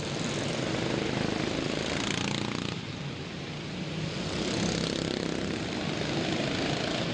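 Several racing lawn mower engines running hard together in a pack, their drone swelling a little as mowers pass about a second in and again around five seconds.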